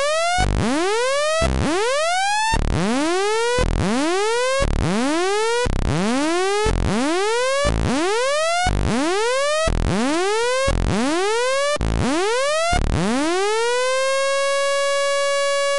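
Native Instruments Massive software synth playing a buzzy Dirty Dutch lead: each note swoops upward in pitch and settles, retriggered about once a second. Near the end one note rises and is held at a steady pitch.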